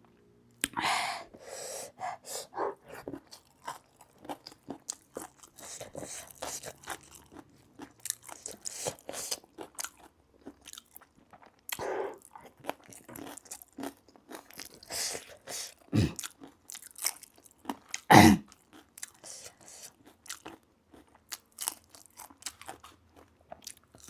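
Close-up eating sounds: crunching and chewing of spicy food in irregular short bites, with two louder sudden sounds about two-thirds of the way through.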